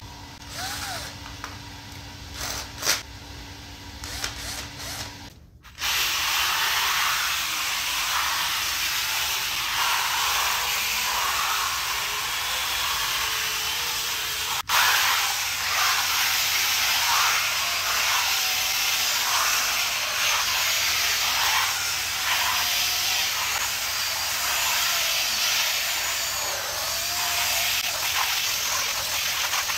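Cordless screwdriver spinning a scrub-brush attachment over a wet, soapy rubber puzzle mat: a steady scrubbing hiss with the motor's whine wavering in pitch as the brush is worked. It starts about six seconds in, after a quieter stretch.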